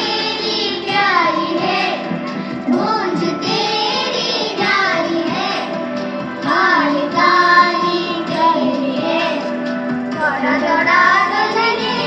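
A group of children singing a song together in unison, with sustained instrumental accompaniment underneath.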